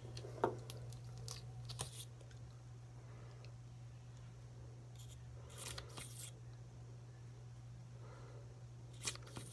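Faint clicks and handling rustles from a small eyelash-product tube and its applicator wand, a few scattered ticks over a steady low hum.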